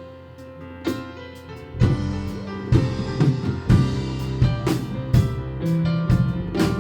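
Church worship band playing a song introduction: keyboard chords, with a drum kit's kick and snare coming in about two seconds in and keeping a steady beat.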